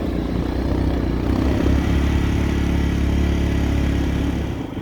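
Quad (ATV) engine running steadily while riding, louder in the middle and easing off near the end.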